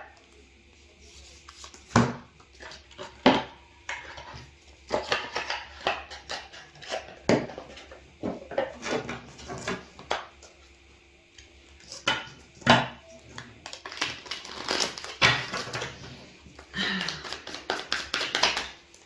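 A deck of oracle cards being shuffled and handled: irregular clusters of short slaps and clicks, with pauses in between.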